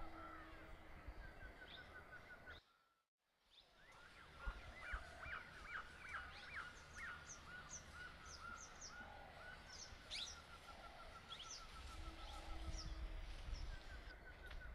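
Faint rural outdoor ambience: birds chirping and calling in short rising notes, over a steady fast pulsing trill. The sound cuts out completely for a moment about three seconds in.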